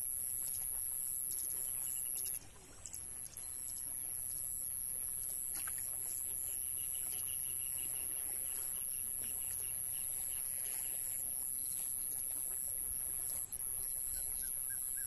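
Open-air ambience with a steady high-pitched whine that breaks off for about a second a couple of seconds in. A bird sings a run of quick repeated notes in the middle.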